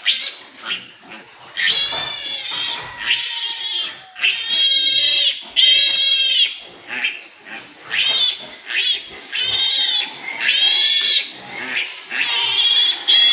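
Newborn piglet squealing in about seven long, high-pitched cries with short gaps between. It is being caught and held for its iron and multivitamin injection.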